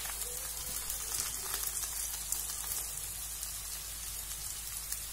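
Sliced onions, curry leaves, ginger and garlic frying in hot oil in a kadai: a steady sizzle with scattered small crackles.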